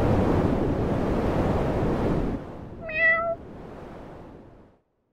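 A single short cat meow about three seconds in. Before it, a loud rushing noise drops away, and what is left fades out near the end.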